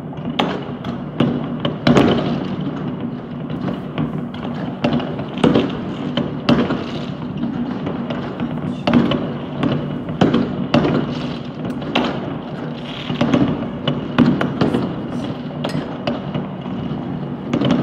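Many fireworks going off all over a city at once: a constant din of distant bangs and crackling, with irregular sharper, louder bangs standing out every second or so.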